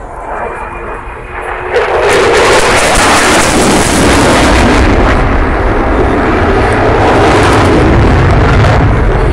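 Jet roar from a Eurofighter Typhoon's two Eurojet EJ200 engines: it swells sharply about two seconds in and then holds loud, with a ragged crackle on top.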